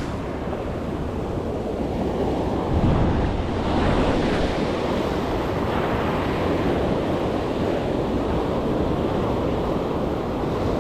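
Pacific Ocean surf breaking and washing in, swelling up about three to four seconds in, with wind on the microphone.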